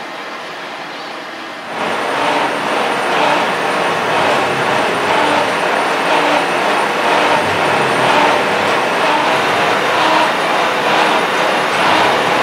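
Heavy workshop machinery running with a steady, dense mechanical noise that gets louder about two seconds in.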